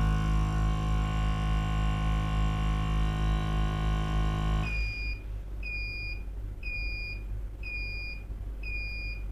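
Octagon 200CL sieve shaker running with a steady, many-toned hum that cuts off suddenly just under five seconds in, followed by five short high beeps about a second apart from its control panel, the signal that the sieving run has finished.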